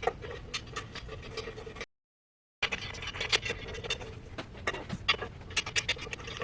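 Metal frame parts and screws of a flat-pack coffee table clicking, clinking and scraping as the pieces are fitted together and the screws are turned in by hand. The sound cuts out to dead silence for under a second about two seconds in.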